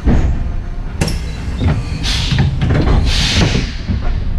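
Heritage electric tram heard from inside its driver's cab: a steady low rumble with a couple of sharp knocks, and two short bursts of hiss about two and three seconds in.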